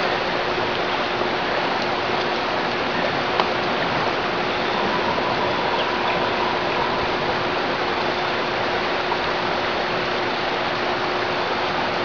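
Steady rush of river water, an even hiss that holds the same level throughout.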